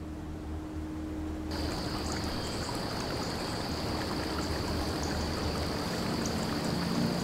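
Running water: a steady rush with small drips and ticks, starting suddenly about a second and a half in over a low steady hum.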